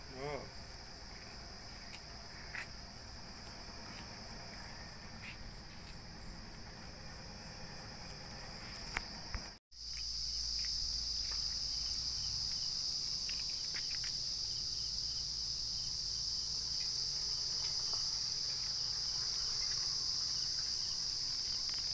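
Steady high-pitched chorus of insects, unbroken in rhythm or pitch. It cuts out briefly about ten seconds in and comes back louder.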